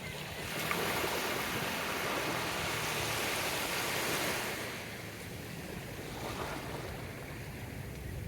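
Sea waves washing onto the shore: one wave surges in about half a second in and eases off after about four and a half seconds, with wind in the background.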